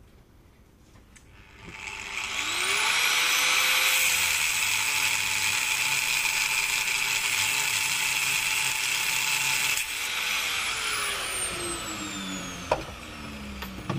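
Angle grinder with a cut-off disc spinning up about two seconds in and cutting through a steel link of a muck spreader flail chain with a loud, harsh grinding. Near the end it winds down with a slowly falling whine.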